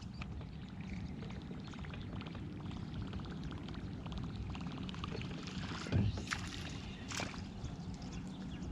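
Fishing reel being cranked in with a fine, rapid clicking, over a steady low rumble of wind and water, with a knock about six seconds in.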